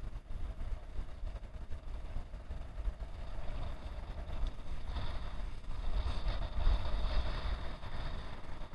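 Wind rumbling on the microphone, with a motor vehicle passing and loudest from about five to eight seconds in.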